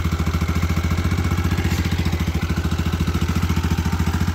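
ATV engine idling steadily, with an even, rapid beat.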